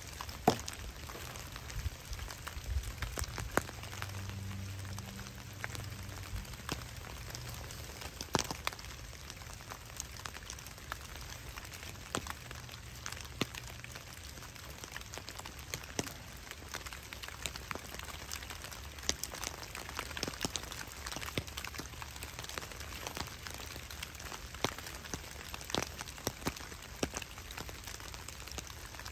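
Rain falling in woodland, with individual drops ticking sharply and irregularly against a steady patter.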